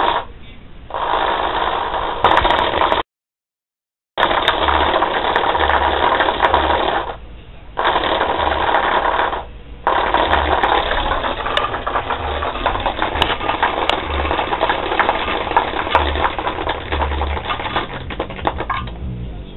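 Coins rattling and buzzing hard on the cone of a small woofer driven with bass, in several long bursts with short breaks, a low bass tone pulsing underneath.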